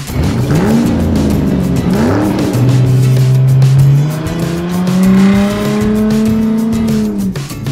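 Sports-car engine sound effect: two quick revs about a second and two seconds in, a steady run, then a long rising acceleration that drops away near the end, over background music.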